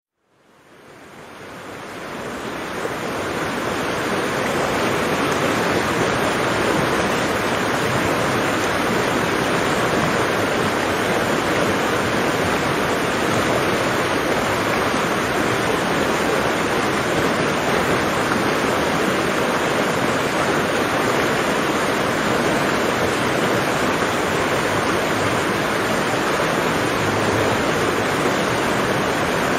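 Steady rushing water noise that fades in over the first three or four seconds and then holds even.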